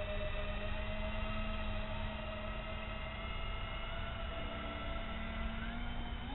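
Twin electric motors of a radio-controlled foam flying boat giving a steady whine of several pitches, under the low rumble of wind on the microphone.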